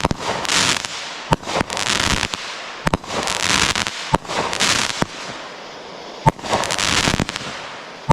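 Consumer fireworks going off: about five sharp bangs a second or two apart, each followed by a spell of crackling hiss, with the sharpest bang a little past six seconds in.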